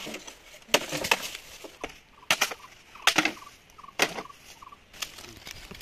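Wood being chopped by hand: a series of sharp, splintering chop strokes, roughly one a second, with a quick double stroke about three seconds in.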